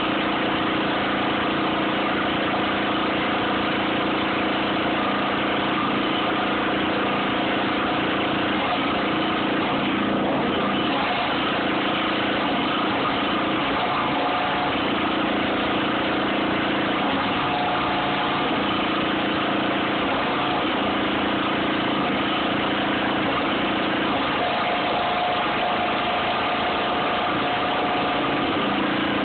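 An engine idling steadily under the sizzle and crackle of arc welding on a steel loader bucket.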